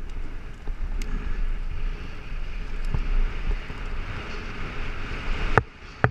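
Wind rushing over the camera microphone and tyre and trail noise from a mountain bike rolling downhill, with a few sharp knocks and rattles from the bike, the loudest two near the end.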